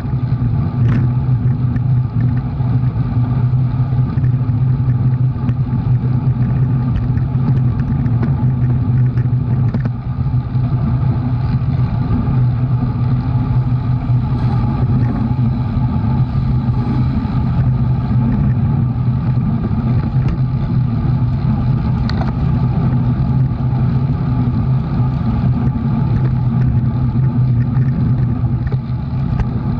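A motor vehicle's engine running at a steady speed, a constant low drone.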